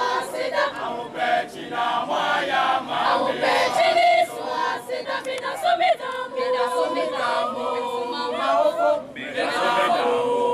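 A choir of mixed girls' and boys' voices singing a cappella, with no instruments, pausing briefly about nine seconds in before going on.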